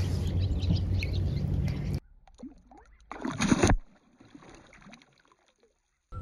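A released largemouth bass kicking off the surface beside a kayak, one short, loud splash about three seconds in. Before it, steady water and handling noise with a low hum cuts off abruptly about two seconds in.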